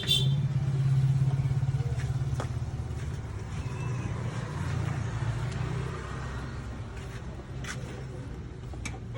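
A vehicle engine running at idle, a low steady hum that is loudest in the first few seconds and then eases a little. A few light clicks sound now and then.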